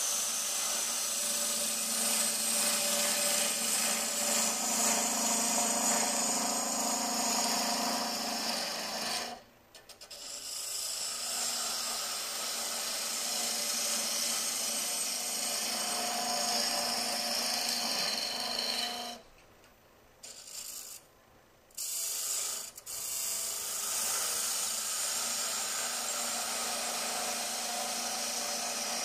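Gouge cutting a spinning mesquite goblet blank on a wood lathe: a steady rasping hiss as shavings come off. It stops briefly about ten seconds in, and again for a couple of seconds around twenty seconds in, as the tool comes off the wood.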